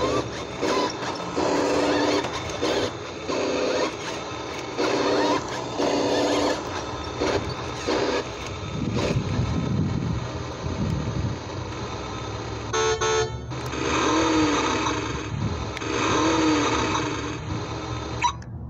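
Built-in electronic sound effects of a New Bright 1:6 Ford F-150 RC truck played through its small speaker: a string of short horn honks, a low rumble in the middle, then longer sounds that swell and fall in pitch twice near the end.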